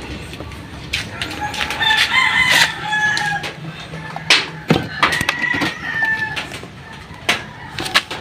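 A rooster crowing twice, each crow drawn out and sinking slightly at the end. Sharp clinks and knocks sound around it.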